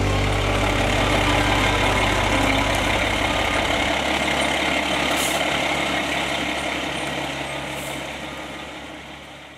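Fire engine running with its warning lights on as it pulls out of the station bay, its engine a steady heavy rumble with two short air hisses about five and eight seconds in. The sound fades out toward the end.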